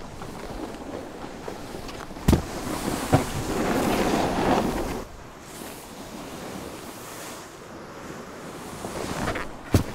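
Skis sliding and carving through snow, with wind. A loud swoosh of snow spray rises about three seconds in and drops away at five. Sharp knocks come at about two seconds, at about three seconds, and again near the end.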